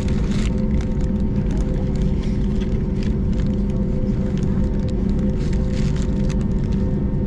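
Airbus A321 cabin noise: a steady engine rumble with a constant low hum, and a few faint rattles.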